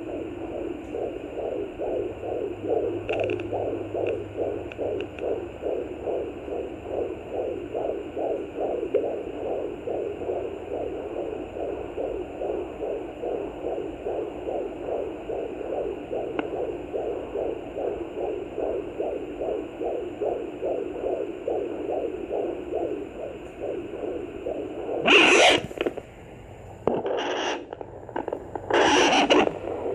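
Fetal heartbeat at 20 weeks picked up by a Sonoline B handheld fetal doppler: a fast, steady pulsing of about two and a half beats a second. Near the end, a few loud scraping bursts break over it.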